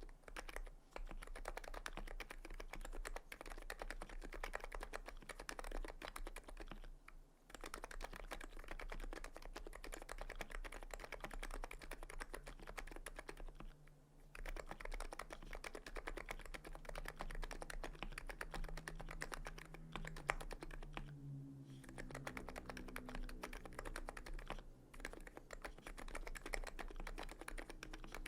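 Fast, continuous typing on a TX66C R2 keyboard built on FC660C Silent Topre switches with 45 g Krytox-lubed springs and KBDfans HiPro keycaps, with short pauses every few seconds.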